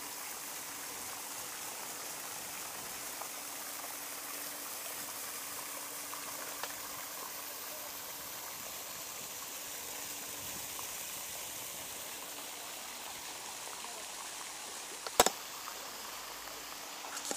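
Steady hiss of a small fountain's spray splashing onto canal water. There is a single sharp click about fifteen seconds in.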